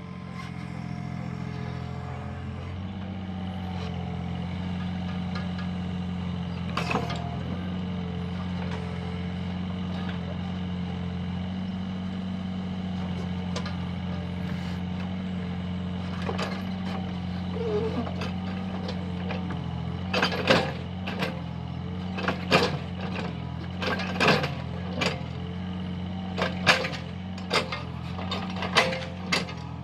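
Mini excavator's engine running steadily at work, with a string of sharp knocks and clanks from the working machine coming in from about two-thirds of the way through.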